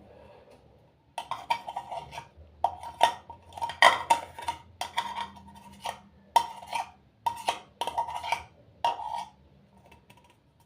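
A spoon knocking and scraping against a mixing bowl in a string of irregular taps, as salted butter is scooped in with the flour and warm milk.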